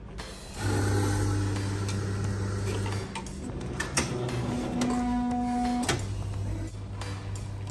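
Self-service coffee machine brewing a drink after the button is pressed. A steady low motor hum starts about half a second in, with a sharp click around the middle. A higher whirring tone follows for about a second, then the low hum returns as the cup fills.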